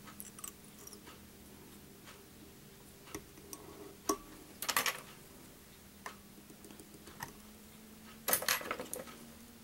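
Sporadic small metallic clicks and taps of a whip-finisher tool being worked around the hook at the fly's head, with a few louder clusters of handling noise near the middle and near the end, over a steady faint low hum.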